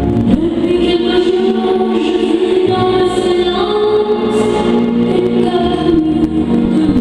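Slow choral music: a choir sings long held notes over a sustained organ-like backing, coming in just after the start.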